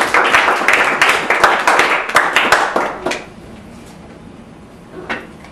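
Small group of people applauding, fast overlapping hand claps that die away about three seconds in.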